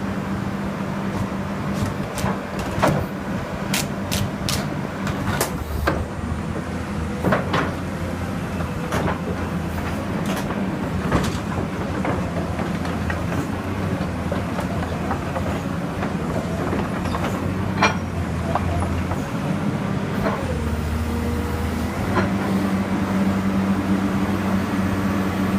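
Komatsu PC220-7 crawler excavator's six-cylinder diesel engine running steadily, its note deepening in two stretches, with sharp metallic clanks and knocks scattered throughout.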